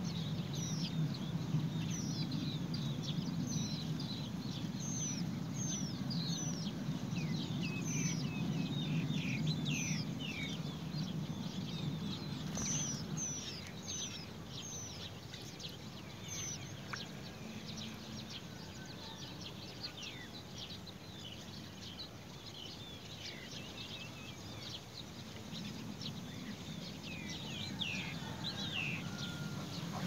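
Nestlings begging for food: rapid, thin, high chirps, each falling in pitch, crowded together for the first half and thinning out after, with a few more near the end. A steady low rumble runs underneath.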